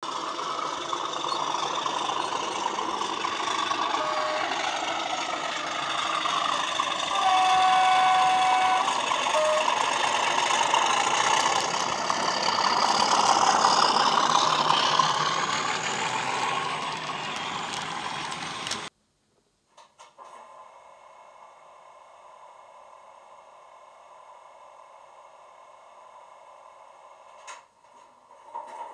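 A Class 37 diesel sound file playing from a model locomotive's DCC sound decoder through its ESU passive radiator speaker: the English Electric V12 engine working as the loco runs, with horn notes sounded between about four and ten seconds in (a short note, a long note, then another short note). About two-thirds of the way through the sound cuts off suddenly, and a much quieter steady hum with faint tones follows.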